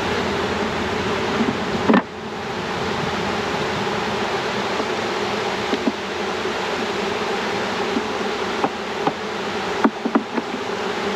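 Many honey bees buzzing steadily around hives during package installation, with a few short sharp knocks, about two seconds in and again near the end.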